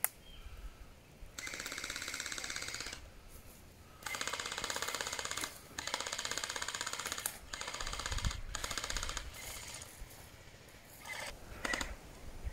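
Gel blaster firing on full auto in rapid bursts: four bursts of about a second and a half each, then two short bursts near the end.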